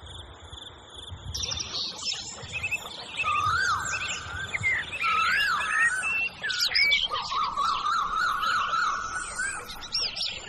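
Several birds singing and calling at once, a tangle of quick rising and falling whistled notes, with a steady high trill over the first second or so.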